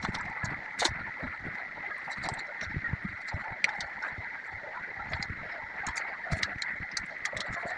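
Raw goat testicles (kapoora) being cut and peeled by hand on a wooden chopping board: wet squishing of the raw meat and irregular small clicks and taps of knife and fingers on the board, over a steady high hiss.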